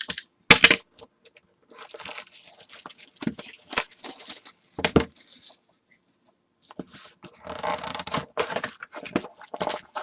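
Trading-card packaging being opened by hand: foil pack wrappers and cardboard tearing and crinkling in irregular bursts, with a sharp snap about half a second in and a brief pause around six seconds.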